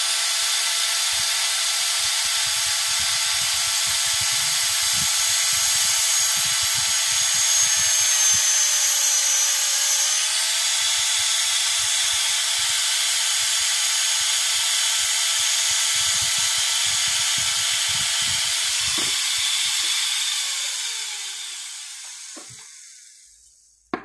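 Dental handpiece running steadily with a size 6 post drill as it reams out the post space in a tooth's root canal, a high whine that dips slightly in pitch under load about nine seconds in. Near the end it spins down and stops, followed by a click.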